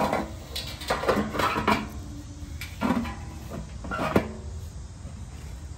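Galvanized sheet-metal blower housing clanking and scraping in irregular knocks as it is handled and tipped upright, with a sharper knock about four seconds in.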